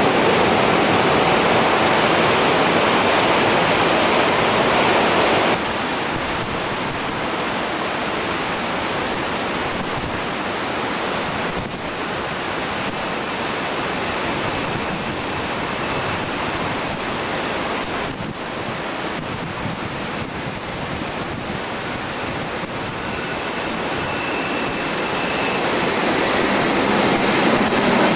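Steady rushing of a fast mountain river over boulders, dropping suddenly in level about five seconds in. Near the end an electric passenger train comes up, growing louder, with a thin whine of wheel squeal as it runs on the curved track.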